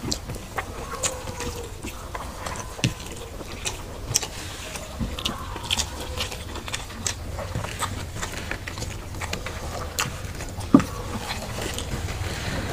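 Mouth and hand sounds of eating rice and curry by hand: irregular wet clicks and smacks of chewing and of fingers mixing rice on plates, with a low steady hum underneath.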